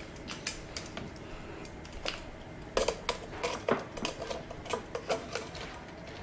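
Irregular clicks and clatters of metal tongs picking up crab legs from a wooden serving platter of seafood, with a few louder knocks in the middle.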